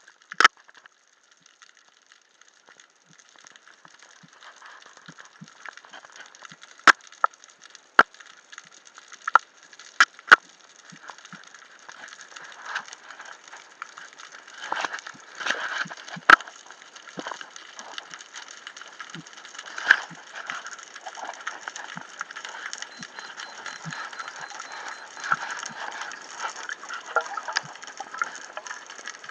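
Underwater crackling with a scatter of sharp, loud clicks and knocks, several in quick succession from about 7 to 10 seconds in, then single ones later, over a faint hiss that slowly grows.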